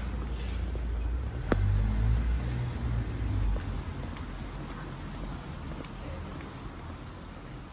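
Steady rain falling, with a low rumble in the first half that dies away about three and a half seconds in, and one sharp click about a second and a half in.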